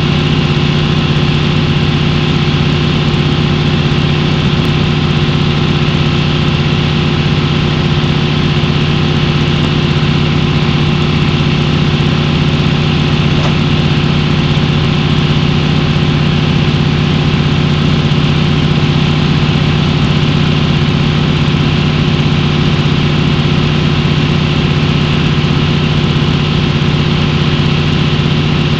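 A large engine running steadily at constant speed, a loud, unchanging drone with no revving.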